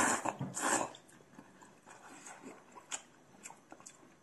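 Wide hand-pulled belt noodles slurped up loudly, two slurps in the first second, followed by quiet chewing with small scattered clicks.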